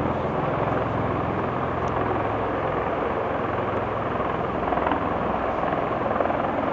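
Rotorcraft running steadily: a fast, low rotor beat under a broad, even engine rush.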